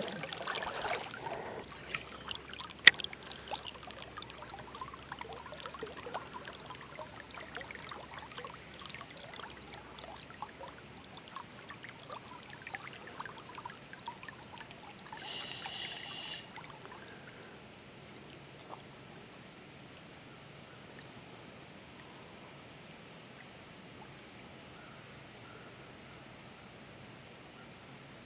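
River water trickling and lapping in many small splashes for the first half, with a sharp click about three seconds in. After that it settles to a faint steady hiss.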